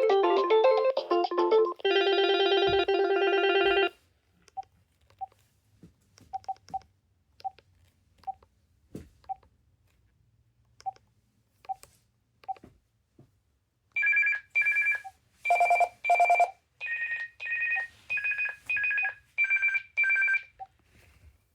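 Electronic ringtones from a BT7600 telephone: a melodic tune ends about two seconds in and a second ringtone of repeated notes plays until about four seconds in. Faint clicks follow for about ten seconds, then a warbling ring alternating between two high tones starts in short repeated bursts.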